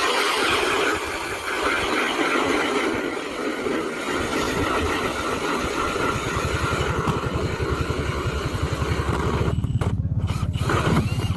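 Powered ice auger drilling a hole through the ice: a steady motor sound with grinding noise from the cutting. About halfway through, a low, rapid pulsing grows stronger.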